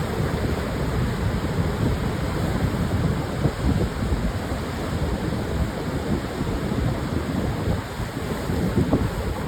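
Ocean surf washing onto a sandy beach in a steady, unbroken roar of waves, with wind buffeting the microphone.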